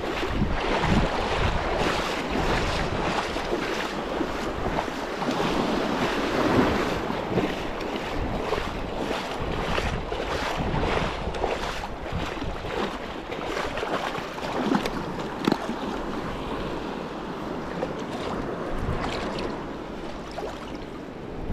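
Small surf waves breaking and washing through shallow water, with wind buffeting the microphone in irregular gusts.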